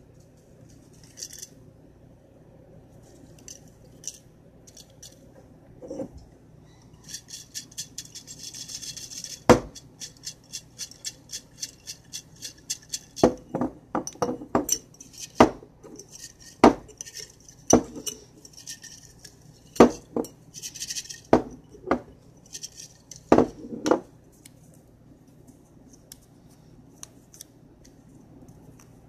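Glass jar holding folded paper slips being shaken and handled: a quick run of rattling ticks, then a string of sharp knocks and clinks of glass, with only faint handling near the end.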